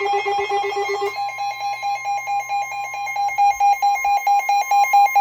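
Weather radio receiver's alert alarm beeping rapidly, about eight beeps a second, over the steady 1050 Hz NOAA Weather Radio warning tone. About a second in, the beep pattern changes and loses its lower note. The alarm signals a severe thunderstorm warning being broadcast.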